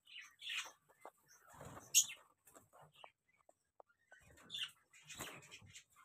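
Budgerigars chirping faintly and making a few short calls, with rustling and small clicks as a clay-pot nest box on a wire breeding cage is handled.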